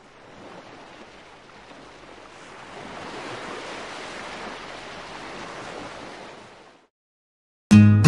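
Ocean surf washing in a steady rush that grows louder a couple of seconds in, then fades out. After a brief silence, acoustic guitar music starts near the end.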